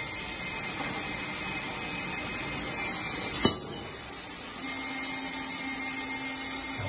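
Mado MKB635 bandsaw running with no cut: a steady whir of the motor and moving blade. About halfway through there is one sharp click, and about a second later a steady low hum joins in.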